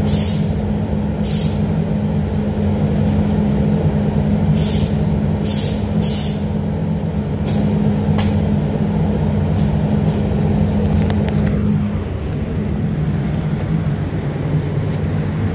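Paint booth ventilation running with a steady low hum; about twelve seconds in, its main tone stops with a short falling wind-down. Several brief bursts of high air hiss come in the first eight seconds.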